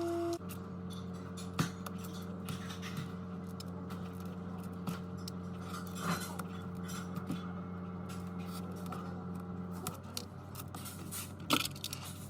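Light clicks and scrapes of small repair tools against glass and metal, over a steady low machine hum that cuts off about ten seconds in.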